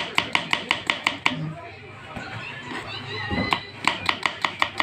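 Knife chopping shallots on a chopping board: quick, even taps about seven a second. The taps pause for about two seconds in the middle, then start again.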